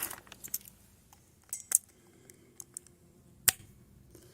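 Scattered light clicks and clinks of a push-fit plastic plumbing fitting and end cap being handled with small tools, with one sharper click about three and a half seconds in.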